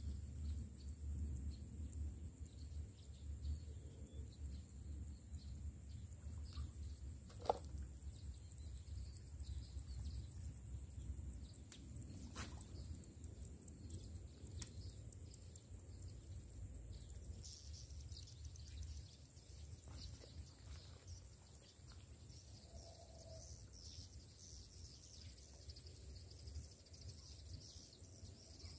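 Open-air ambience: a low rumble, a steady high insect buzz and faint bird chirps that grow in the second half, with two sharp clicks, the louder one about seven and a half seconds in.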